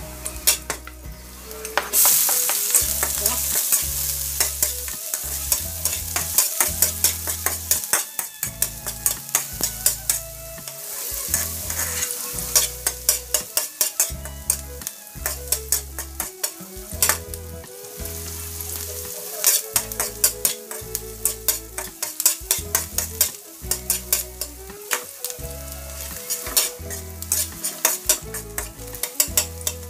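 Chopped garlic sizzling in hot oil in a metal wok, with a slotted metal spatula scraping and clacking against the pan in quick runs of clicks as it is stirred.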